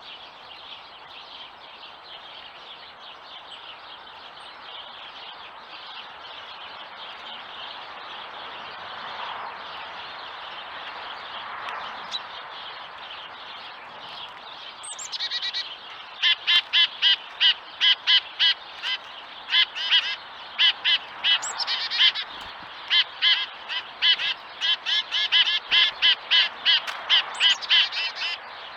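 Small songbirds calling at a feeder. For the first half there is only a faint, continuous high twittering. About halfway through, a long run of loud, harsh call notes starts, repeated a few times a second.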